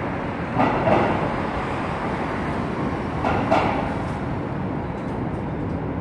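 Steady city street traffic noise, with two brief louder swells, one about half a second in and another about three seconds in.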